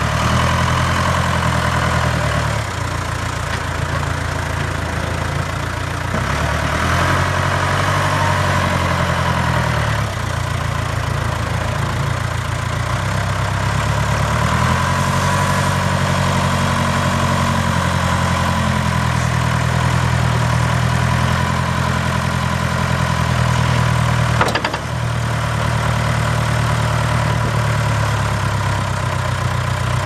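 Case 580K backhoe's four-cylinder diesel engine running, its speed rising and dropping back several times. A single sharp click comes late on.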